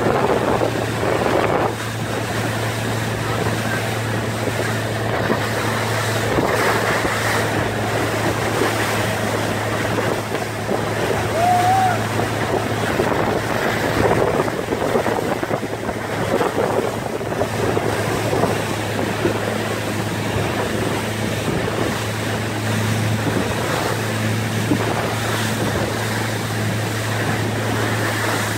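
Motorboat engine running steadily at speed, with water rushing in the churning wake and wind buffeting the microphone.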